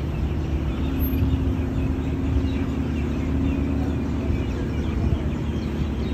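Street traffic: cars driving slowly past with a steady low engine hum.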